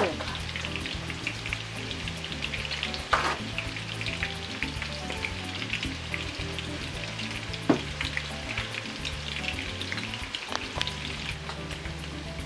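Battered yellow perch pieces deep-frying in oil at 325°F: a steady, dense crackling sizzle. A few sharp clicks stand out, one about three seconds in and another near eight seconds.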